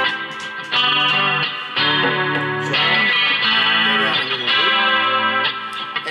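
Chinese-made Telecaster-style electric guitar playing: a looped clean chord part with an overdriven lead over it, notes struck about once a second and left to ring.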